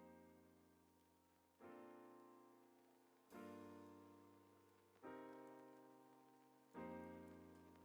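Quiet piano music: five soft chords, one struck about every second and a half, each fading away before the next.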